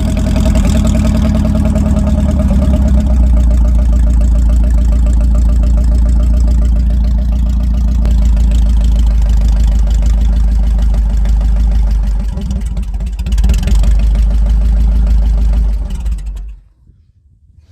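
UAZ Bukhanka van's engine running steadily close by, swelling briefly near the end, then stopping abruptly about sixteen seconds in.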